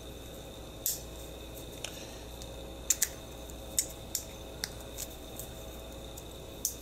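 Plastic battery pack of a Baofeng BF-F9 V2+ handheld radio being handled and pushed into place: about nine sharp clicks and taps, scattered irregularly, over a faint steady hum. The battery is a tight fit.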